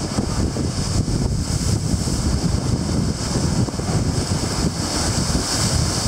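Strong wind buffeting the microphone over the steady wash and crash of heavy surf breaking against a rocky limestone shore.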